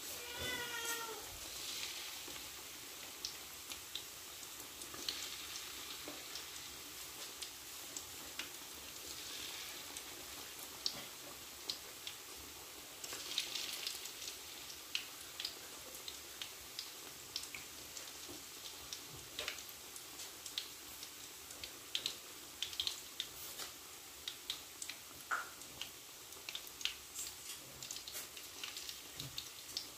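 Chicken kabab pieces deep-frying in hot oil in a kadai: a steady sizzle with frequent sharp pops and crackles.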